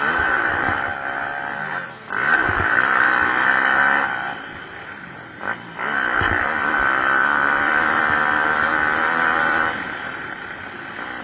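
Pit bike engines racing on a motocross track, their note rising and falling as they rev, with two brief drops in level about two and five seconds in.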